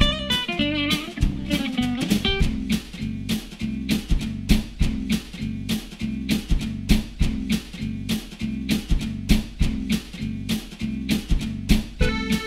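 Background music: guitar over a steady, evenly spaced beat, with a held keyboard chord coming in near the end.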